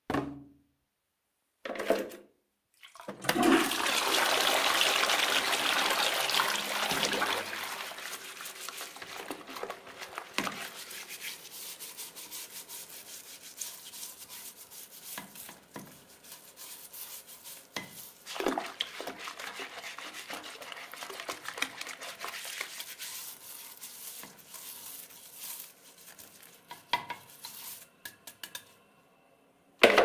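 Toilet flushing: after two short knocks, a loud rush of water starts about three seconds in and lasts about four seconds, then settles into quieter running and gurgling water with scattered clunks. A sharp knock comes near the end.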